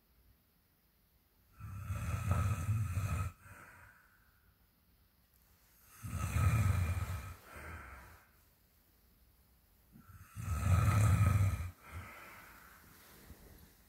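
Extremely loud snoring: three long, deep snores about four seconds apart, each followed by a softer breath out.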